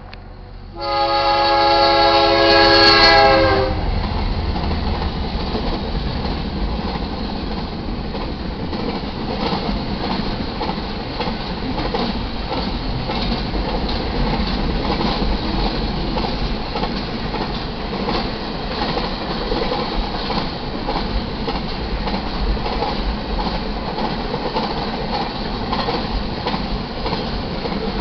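Freight train horn sounding one long chord-like blast about a second in, as the GE C44-9W diesel locomotives pass. Then the double-stack container cars rolling by with a steady rumble and clatter of steel wheels on the rails.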